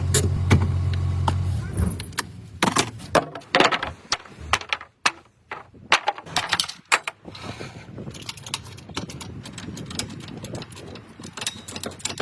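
A steady low hum that stops about two seconds in, then a long run of sharp metallic clicks and knocks, like tools and brake parts being handled.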